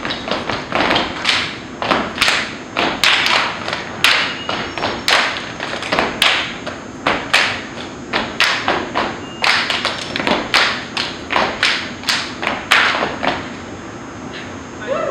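A step team stomping and clapping in a rhythmic routine on a brick floor, sharp hits coming two or three a second; the strikes stop near the end.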